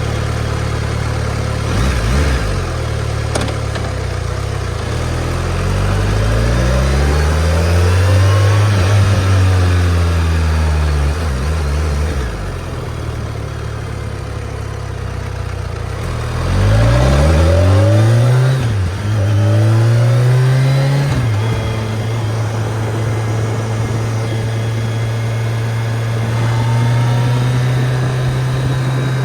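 BMW K1300S's inline-four engine pulling hard through the gears twice, revs climbing and dropping back at each shift, then settling to a steady cruise.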